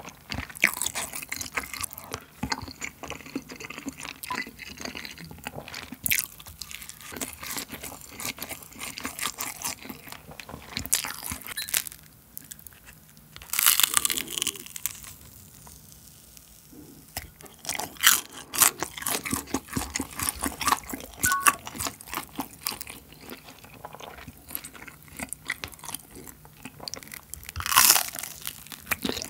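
Close-miked eating: crunchy bites into a crisp pan-grilled cheese rice cake (garaetteok) coil, with chewing between them. The loudest crunches come about fourteen seconds in and again near the end.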